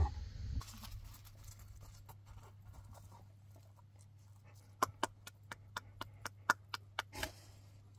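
Footsteps on dry desert gravel: a quick, uneven run of about a dozen light crunches starting about halfway through.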